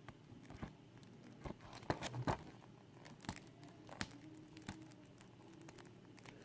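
Plastic wrapping on a Blu-ray case crinkling and scratching in short, scattered faint crackles and clicks as fingers pick at it, trying to tear it open.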